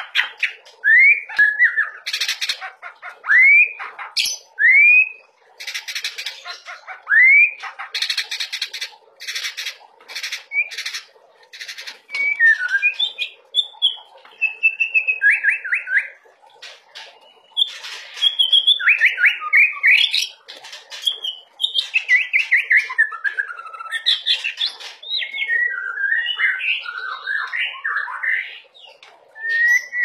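White-rumped shama (murai batu) singing nonstop: harsh rasping bursts alternate with short rising whistles, and from about halfway on a run of varied whistled phrases with gliding notes.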